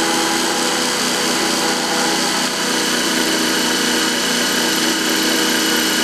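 DeWalt cordless driver running steadily under heavy load as a spear-point multi-purpose drill bit, wetted with water, bores into hard porcelain tile. The steady motor whine holds constant, with the bit grinding through the tile.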